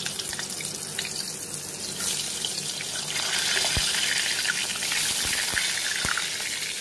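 Potato chunks sizzling and crackling as they fry in hot oil in a wok, the sizzle growing louder about two and three seconds in as more pieces go into the oil.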